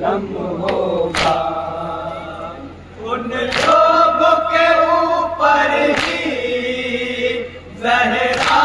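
Group of men chanting a Shia noha in unison, with sharp, loud hand slaps on the chest (matam) struck together about every two to two and a half seconds, five times.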